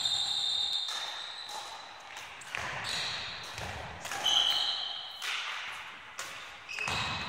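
Court shoes squeaking and stamping on a sports-hall floor as a badminton player lunges to the net: several high squeaks and a few thuds, with the hall's echo.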